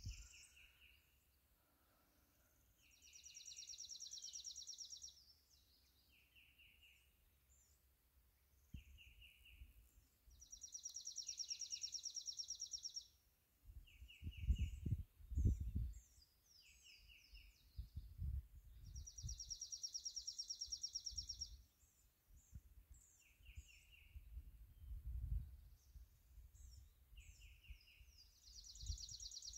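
Songbirds singing in woodland: one bird repeats a high, even trill about two seconds long roughly every eight seconds, and shorter, lower trilled phrases come in between. A few low thumps sound near the middle.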